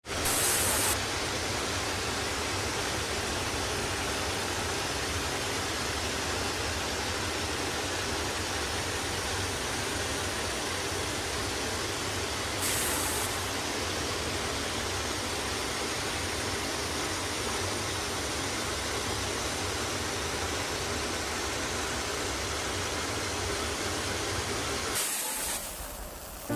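Waterfall rushing: a steady, dense noise of falling water that thins out near the end.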